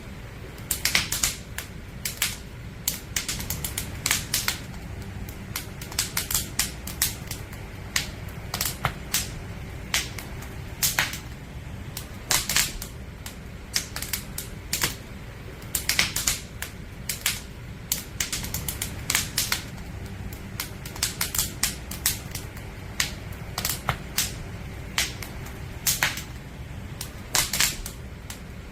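Firewood burning in a campfire, crackling and popping: irregular sharp snaps, often in quick clusters, over a low steady rumble of the flames.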